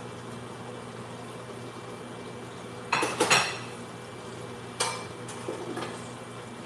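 A metal spoon scrapes and clinks against cookware while food is served out. There is a loud cluster of scrapes about three seconds in and a few lighter ones around five seconds, over a steady background hum.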